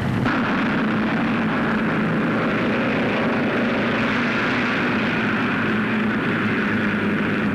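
Racing car engine running at speed, a steady, unbroken engine noise.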